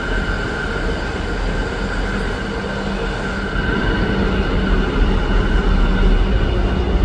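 Automatic (driverless) U-Bahn train running through a station without stopping: continuous rolling noise with a steady high whine, growing louder about halfway through.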